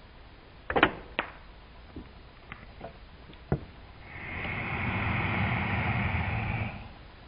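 A couple of sharp clicks near the start, then a domestic cat hissing steadily for about two and a half seconds, starting about four seconds in.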